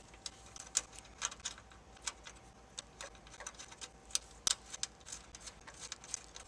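Irregular small metallic clicks and ticks as a bolt is turned in by hand through a grounding wire's ring terminal on a metal bracket, with one louder click a little past the middle.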